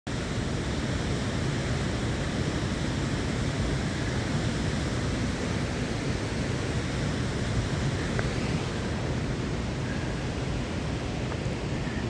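Steady rushing noise of a waterfall and mountain stream tumbling through the gorge, even and unbroken throughout.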